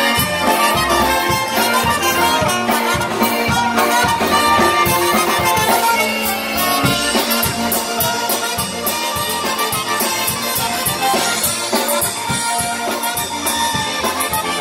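Live polka band playing an instrumental passage: trumpet, clarinet, piano accordion and concertina over electric bass and drums, with a steady beat.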